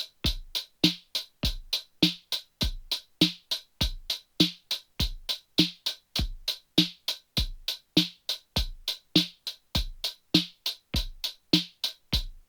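Drum-machine backing track of kick and snare alternating, with a finger-drummed single-stroke roll on a pad controller laid over it: even, bright hits about four a second, played hand to hand at the same volume.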